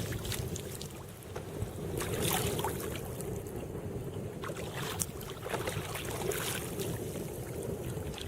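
Heavy wind rumbling steadily on the microphone out on a kayak, with scattered short knocks and splashes.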